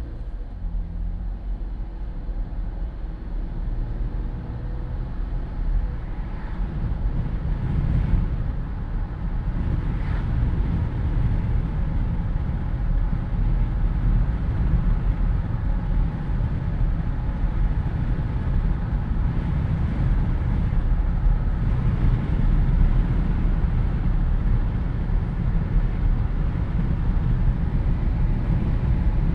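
Jeep Wrangler driving with the windows down: wind rushing through the cabin over a low rumble of road and engine noise. It builds over the first ten seconds or so as the Jeep picks up speed, then holds steady.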